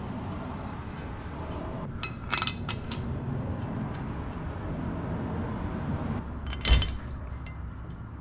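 Steel steering box adapter plate and its bolts being fitted by hand against the truck's frame rail: a few quick metallic clinks about two seconds in, then a louder metal-on-metal clunk near the end.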